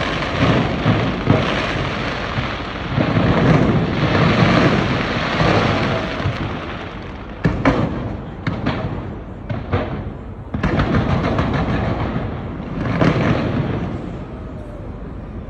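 Fireworks going off in rapid volleys, many bangs and crackles running together, with a few separate sharp bangs about seven to ten seconds in before another dense volley.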